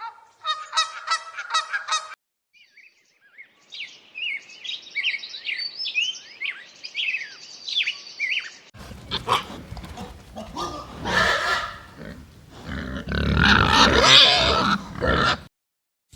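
A string of farm animal calls cut together: a few short honking calls, then a run of high chirping calls, then louder, rough, noisy calls near the end.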